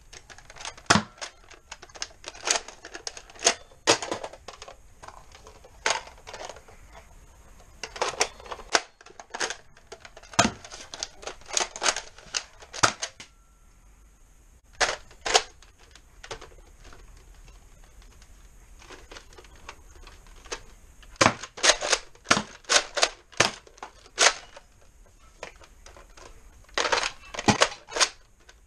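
Plastic Nerf blasters being handled and worked: quick clusters of sharp clicks and clacks, with a quieter stretch about halfway through.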